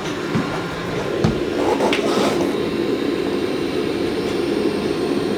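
Dreame L20 Ultra robot vacuum-mop running as it returns to its base station to drop off its mop pads: a steady mechanical hum that grows a little louder about a second in, with a few light knocks in the first two seconds.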